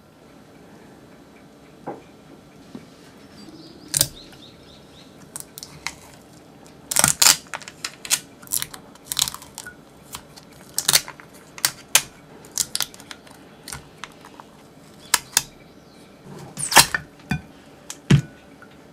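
Adhesive tape being peeled off a stainless steel bowl in a run of short, irregular crackling rips and clicks. Near the end comes a duller knock as the steel bowl is handled.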